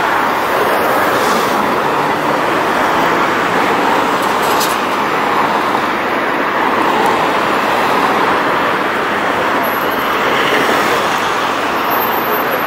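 Steady road traffic noise: a continuous, even rush of vehicles with no single engine standing out.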